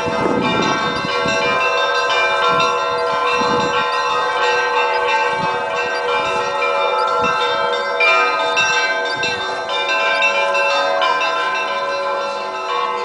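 Orthodox church bells ringing: small bells struck in quick succession over the lingering ring of larger bells, many tones overlapping.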